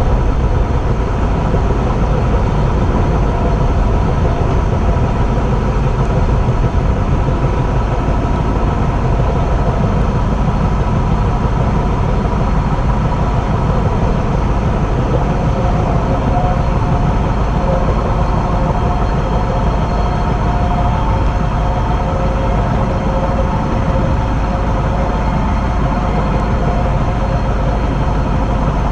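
Train running along the track, heard from the front of the train: a steady, loud low rumble with a few faint tones above it that shift in pitch about halfway through.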